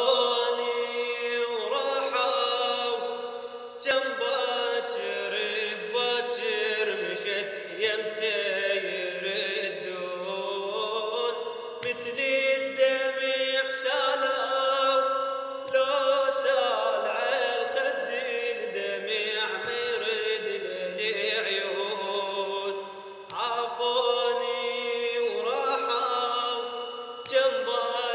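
A male voice singing a slow Arabic chant-like song in long, held phrases that bend in pitch, with brief pauses between phrases.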